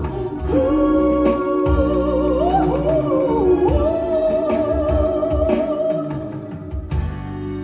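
A vocal group singing a long held close-harmony chord with vibrato over the band, the top voice sliding upward partway through; the chord breaks off about seven seconds in as the band plays on.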